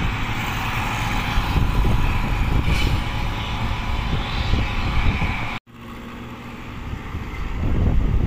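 Road traffic passing on a paved highway, mixed with wind rumbling on the microphone. The sound cuts out abruptly just over halfway through, then swells again near the end as another vehicle approaches.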